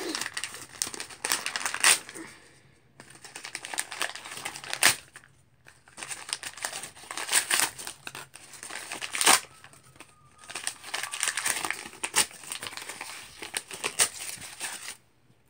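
Paper wrapping being torn and crumpled by hand, in irregular crackling bursts with short pauses between them.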